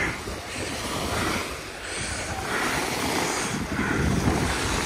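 Small waves breaking and washing up a sandy lake shore, swelling and easing several times, with wind buffeting the microphone.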